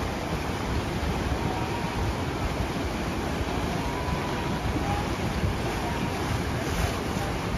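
Steady rushing of churning water on a river rapids raft ride, with wind buffeting the microphone.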